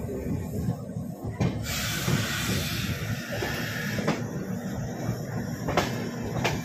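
Moving train heard from on board: a steady low rumble of the wheels on the rails with a few sharp clicks, and a rush of hissing noise from about one and a half to four seconds in.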